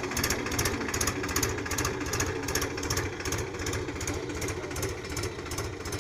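Powertrac 439 Plus tractor's three-cylinder diesel engine running under load in first gear of the high range, pulling a two-row potato planter through the soil, with a fast, even pulsing.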